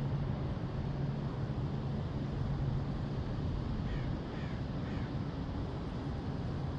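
A bird calling three short times in quick succession, each call falling in pitch, over a steady low hum and outdoor rumble that fades partway through.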